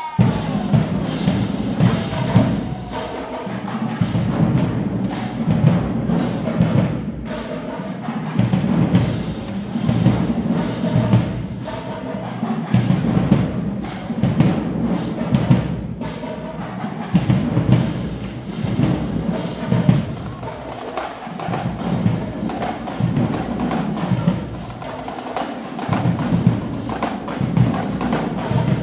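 Marching band drumline of snare and bass drums playing a marching cadence: sharp, rapid snare hits over deep bass drum beats in a steady rhythm.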